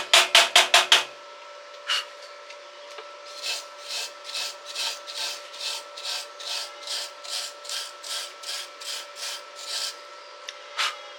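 Hand tool scraping back and forth over a welded workpiece. The strokes are fast and loud at first and stop about a second in, then after a pause come slower and softer at about two or three a second. A faint steady hum runs underneath.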